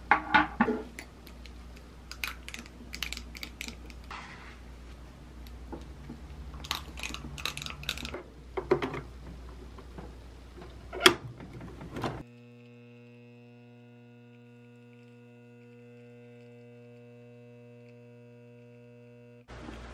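Scattered clicks and knocks of handling cup and machine, the sharpest about eleven seconds in, then a steady pitched pump hum for about seven seconds as an Illy iperEspresso capsule machine brews an espresso shot.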